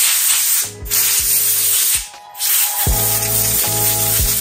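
A loud hissing spray in long bursts, cutting out briefly about a second in and again about two seconds in, over background music with a steady beat and bass.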